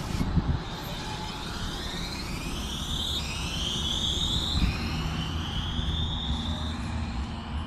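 RET Alstom Citadis tram accelerating away from a stop: its electric traction drive whines in several tones that rise, drop back twice and rise again as it gathers speed, over a low rumble of the wheels.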